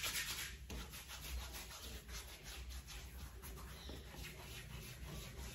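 Hands applying pre-shave oil: palms rubbing together briefly at the start, then fingers and palms stroking and massaging the oil into beard stubble with repeated faint rubbing strokes.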